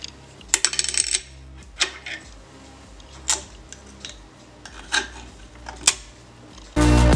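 Hard plastic pieces of a 3D-printed PLA retractable sword clicking and clattering: a quick cluster of clicks about half a second in, then single clicks every second or so. Loud electronic music starts near the end.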